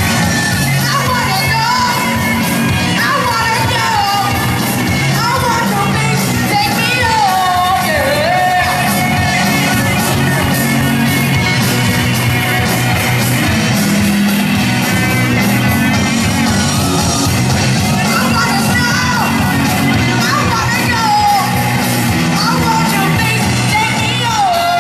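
Live rock band playing: distorted electric guitars, bass guitar and a Gretsch drum kit, with a lead melody that bends and glides in pitch over the top.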